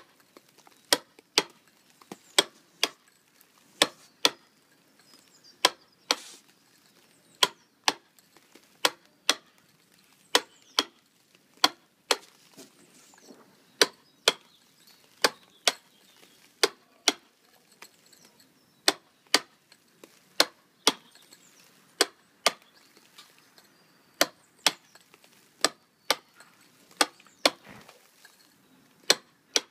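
Hand-struck mason's tool chipping a sandstone quoin to a stugged finish: sharp, clicking strikes, mostly in pairs about half a second apart, a pair every second and a half or so.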